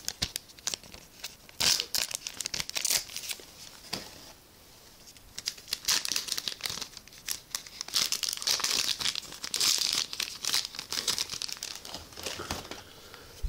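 A Cardfight!! Vanguard booster pack's wrapper being torn open and crinkled by hand, in irregular bursts of crackling and tearing.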